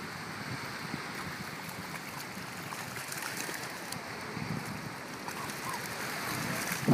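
Steady wash of small waves and light wind, an even hiss with no distinct events.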